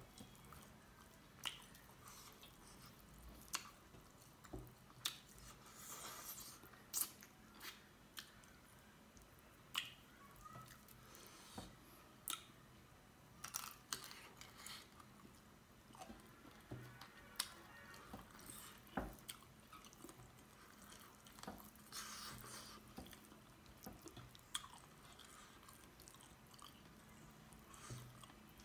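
Quiet, close-up eating sounds of a man eating chicken curry and dhido with his fingers: chewing, wet mouth smacks and scattered short clicks, with fingers picking food off a metal plate.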